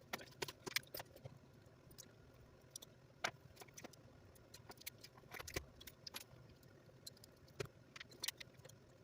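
Faint, scattered light clicks and clinks at irregular intervals, like small hard parts and hand tools being handled during an RC car repair.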